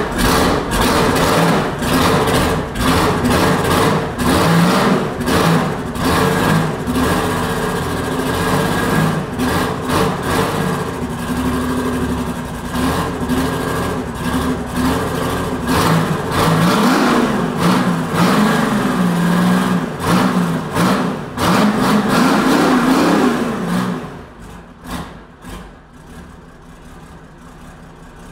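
Detroit Diesel 6-71 two-stroke inline-six diesel running loud on an engine stand, revved up and down several times. About 24 seconds in it drops back to a much quieter, steady idle.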